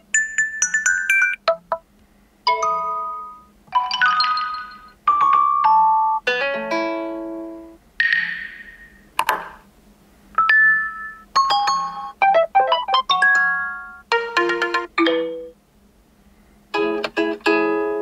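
Huawei P50 Pro's built-in messaging notification tones, previewed one after another through the phone's speaker. About a dozen short chimes and jingles follow each other in quick succession, each different, with brief gaps between them.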